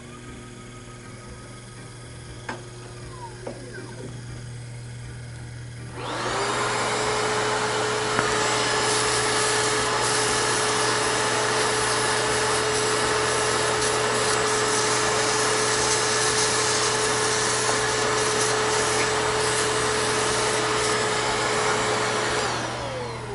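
Shop vac switched on about six seconds in, its motor whining up to speed. It runs with a steady rushing sound while its hose sucks up aluminium chips from the milled part. Near the end it is switched off and the whine falls away as the motor winds down.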